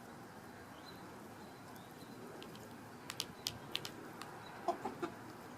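Backyard hens clucking: three short clucks about three-quarters of the way through, just after a quick run of four or five sharp clicks.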